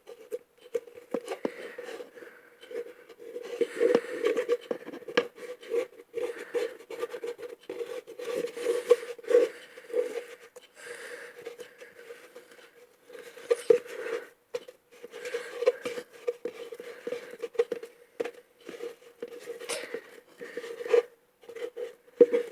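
Homemade slime being kneaded and stretched by hand in a cauldron: irregular sticky crackles, clicks and scrapes over a faint steady hum.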